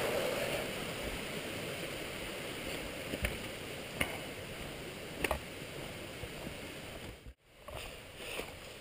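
Steady rushing of a nearby mountain brook, with a few short sharp knocks about three to five seconds in. The sound cuts out for a moment near the end.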